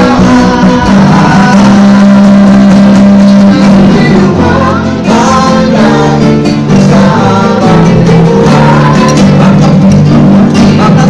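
A small band singing a song to strummed acoustic guitar.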